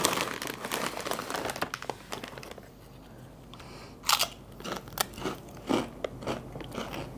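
A potato chip bag crinkling as chips are taken out, then Lay's hot chicken wing flavour potato chips being bitten and chewed, with sharp separate crunches from about four seconds in.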